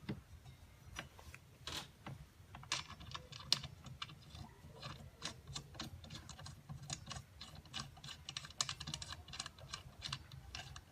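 Light, irregular metal clicks and taps: a circular saw blade, its arbor bushing and flange washer being handled and seated onto a mitre saw's arbor by hand.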